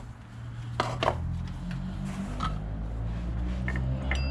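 A car engine running in the background, a low steady rumble that grows louder about half a second in and sounds bad, with a few scattered clicks and taps from parts being handled.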